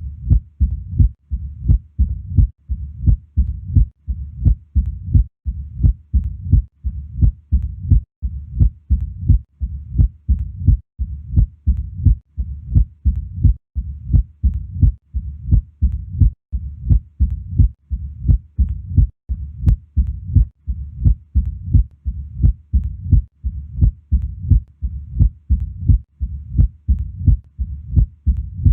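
Heart sounds heard through a stethoscope: a steady, regular heartbeat of low thuds repeating somewhat faster than once a second.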